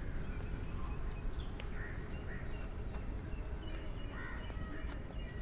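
Faint clicks and light handling noises of a GoPro Hero 9 box being opened slowly by hand, over a steady low background hum.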